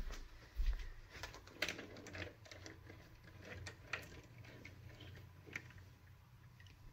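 Faint, irregular light clicks and taps from something being handled close by, thinning out and growing fainter toward the end.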